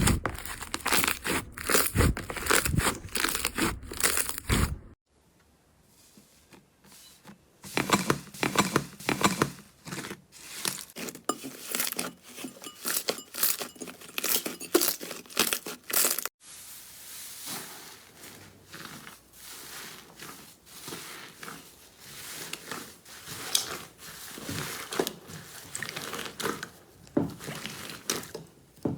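Slime being squeezed, pressed and stretched by hand, giving quick irregular crackling and popping clicks. The sound changes abruptly twice, about five seconds in and again past halfway, and the stretch just after the first change is quieter for a couple of seconds.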